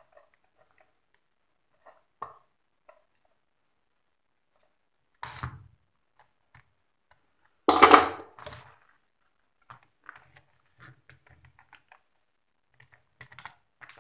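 Handling noise from an amplifier circuit board and its wires on a workbench: scattered light clicks and taps, with a louder burst of scraping noise about eight seconds in.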